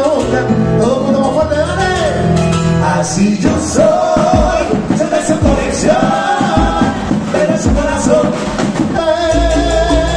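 Live Latin dance band playing: male singers singing into microphones over congas, drums and bass.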